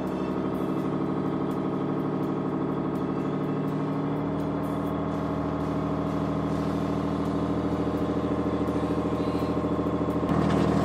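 Boat engine running steadily at idle, a low drone that grows louder about ten seconds in.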